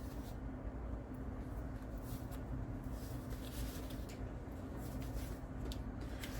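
Faint rustling and light taps of paper pieces and cards being handled on a table, over a steady low hum.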